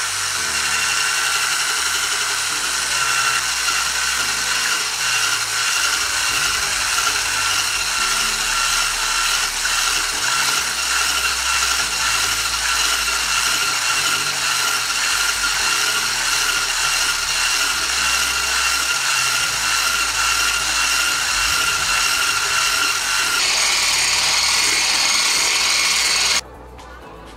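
Electric whisk running steadily as it beats eggs and sugar into a thick, pale foam for sponge cake batter. Its whine steps up to a higher pitch near the end, then cuts off suddenly.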